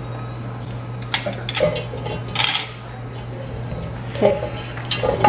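Cookware being handled on the stove: a pot lid and utensil clinking against a large cooking pot, a few separate clinks and one short scrape, over a steady low hum.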